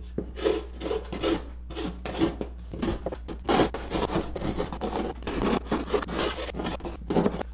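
Japanese-style float rasp scraping over a cured epoxy and fiberglass patch on a kayak hull in quick back-and-forth strokes, about three a second, knocking off the high spots.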